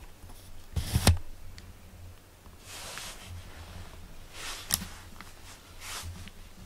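Brief handling noises at close range: a sharp crackling knock about a second in, then three shorter, softer rustles.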